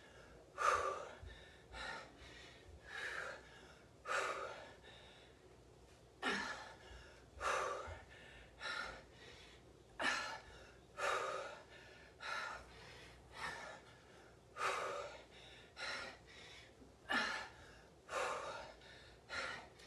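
A woman breathing hard in short, forceful gasps and exhales, about one a second, in time with repeated dumbbell squat-to-press reps.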